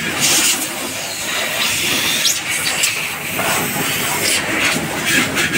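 Compressed air hissing in bursts from an air-hose nozzle pushed into the ports of a removed exhaust canister, blowing it out to clean it. The hiss is strongest just after the start and again near the end, over a steady background noise.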